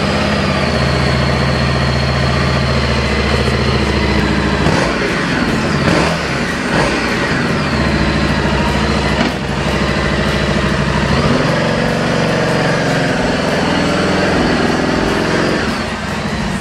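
Harley-Davidson Street Rod 750's 750cc 60-degree V-twin, freshly started, idling through its black 2-into-1 exhaust. The revs rise and fall between about five and seven seconds in, and the note settles lower at about eleven seconds.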